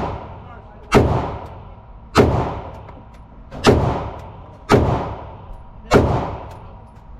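Five gunshots fired at a steady pace a little over a second apart, each ringing out and fading before the next.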